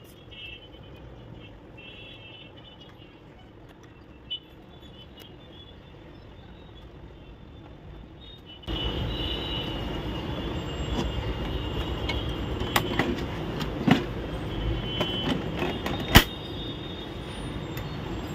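Hands working the plastic scanner unit of an Epson L3210 printer: scattered clicks and knocks as its flat cables are plugged in and the unit is lowered shut, the sharpest knock about sixteen seconds in. Under it a steady background rumble that jumps suddenly louder about nine seconds in.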